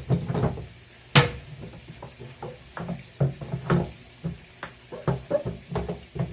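Pipe wrench tightening a threaded flange fitting in a plastic drum: a run of irregular knocks and clicks of the wrench and fitting against the drum, the loudest about a second in.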